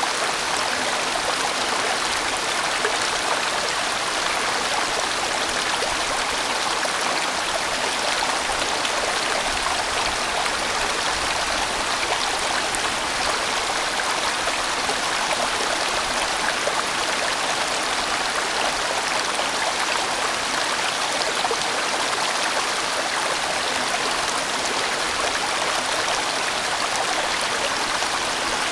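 A large mountain stream rushing and tumbling over rocks in a steady, even flow.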